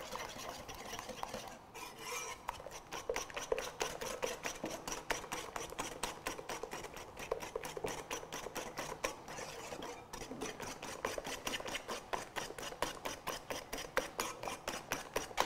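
Wire hand whisk beating a liquid mix of eggs, sugar and oil in a ceramic mixing bowl. The wires tick and scrape against the bowl in quick, even strokes, several a second.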